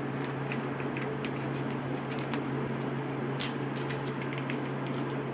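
A plastic chutney sachet crinkling and crackling as it is handled and worked open, in irregular bursts with the sharpest crackle about three and a half seconds in, over a steady low hum.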